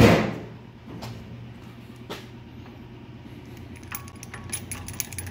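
Hand-tool work on a Brembo brake caliper. A sharp metal clank rings briefly at the start, a few single clicks follow, and from about four seconds in locking pliers click and clink quickly against the caliper. A steady low hum runs underneath.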